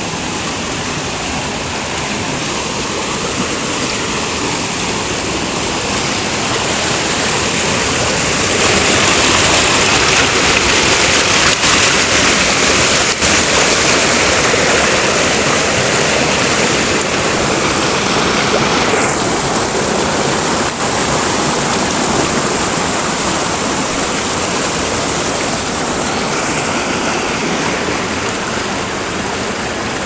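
Mountain river rapids rushing over and between boulders: a loud, steady sound of churning whitewater that grows louder for a stretch in the middle.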